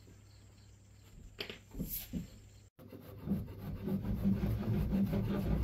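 A few knocks, then a hand saw cutting through a green bamboo pole in repeated strokes that grow louder toward the end.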